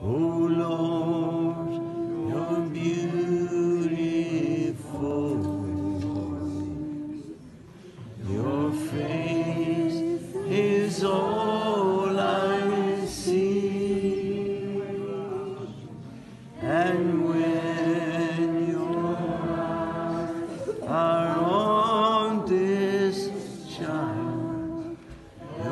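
Slow worship singing in long, held phrases, with brief pauses between phrases about 8 and 16 seconds in.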